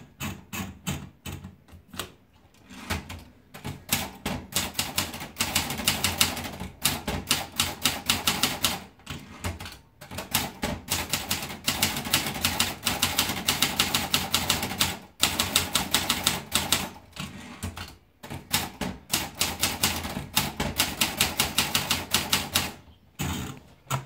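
Robotron Cella manual portable typewriter being typed on: runs of rapid key clacks as the typebars strike the platen, broken by a few short pauses. The first seconds hold sparser clicks as the paper is wound in, and near the end the carriage is pushed back.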